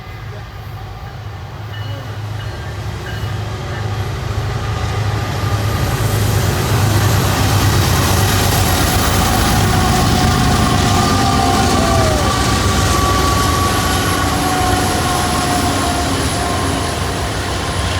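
Union Pacific diesel locomotives, a seven-unit lashup led by UP 8890, moving an eastbound intermodal train with a deep engine rumble. The rumble grows louder over the first six seconds or so and then holds steady, with a few thin steady tones above it.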